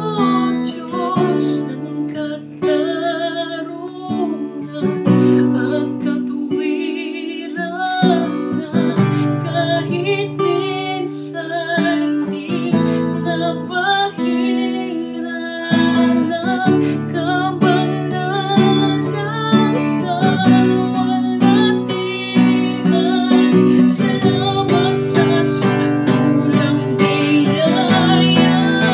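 A man singing a slow worship song over acoustic guitar accompaniment.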